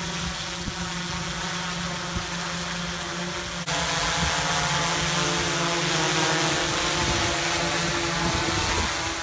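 Multirotor drone's propellers buzzing steadily, with several steady whining tones over a hiss. The sound jumps abruptly louder a little over a third of the way in.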